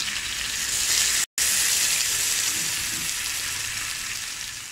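Hot olive oil sizzling steadily in a flat pan as marinated mackerel fry, more fish being added one at a time. The sizzle breaks off for a moment about a second in and eases slightly near the end.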